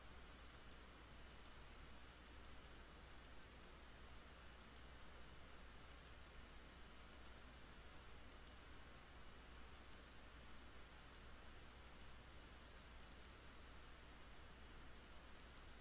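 Faint computer mouse clicks, each a quick double tick of press and release, about once a second, over a low steady hum.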